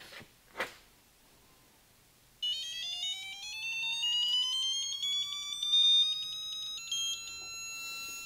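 Icon 1/2-inch digital torque wrench's alert beeper sounding as the wrench is pulled up toward its 50 ft-lb setting: a buzzy tone that climbs steadily in pitch, then switches to a steady higher tone near the end, the signal that the set torque is reached.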